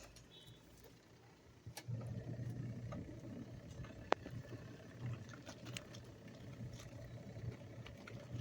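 A motor starts about two seconds in and runs with a steady low hum. A single sharp click comes about halfway through.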